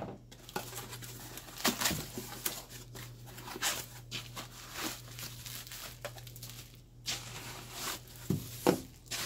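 Cardboard box flaps being pulled open and foam packing sheets rustling and scraping as they are drawn out of the box, in a string of irregular rustles with the sharpest ones near the end.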